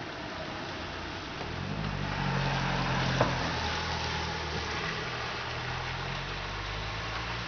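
A motor vehicle's engine running, coming in about a second and a half in and holding steady, over a constant hiss of rain. A single sharp click about three seconds in.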